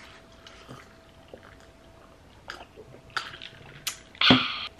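Soda being sipped and swallowed from plastic cups: quiet drinking with a few small clicks, then a louder short burst about four seconds in.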